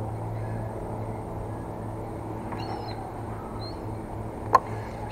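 A steady low engine hum, with a few faint, high, wavering calls in the background and one sharp click near the end.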